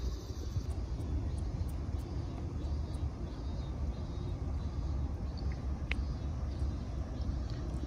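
Wind buffeting the microphone outdoors over water: a steady low rumble that rises and falls.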